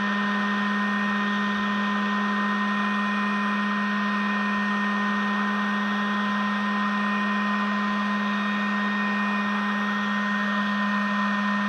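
Heat gun running steadily, blowing hot air over a fresh patch of 20-minute setting joint compound on drywall to speed its hardening. A steady motor hum with a constant rush of air.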